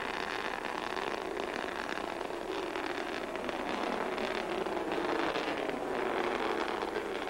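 Steady, rushing roar of a submarine-launched ballistic missile's rocket motor climbing away, mixed with wind on the microphone.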